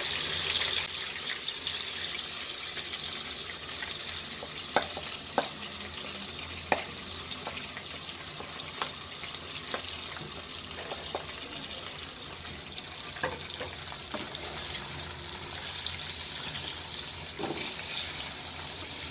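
Chicken leg pieces sizzling in hot oil and ghee in a frying pan, a steady hiss, as a curd marinade is poured in and scraped from a glass bowl with a spatula. A few sharp taps of the spatula against the bowl and pan sound through it.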